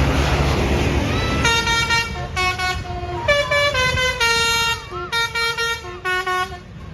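Basuri telolet bus horn playing a tune of held, stepped notes, with short breaks between phrases. It starts about a second and a half in, after a loud rushing noise, and stops shortly before the end.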